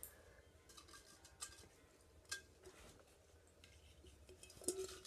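A few light knocks and clinks of a large glass jar being handled; the loudest comes near the end and rings briefly.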